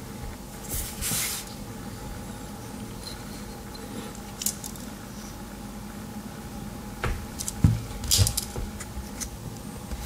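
Handling of a Victorinox Ranger Swiss Army knife: light rustling, then a few sharp clicks about seven to eight and a half seconds in as its tools snap open or shut, over a faint steady hum.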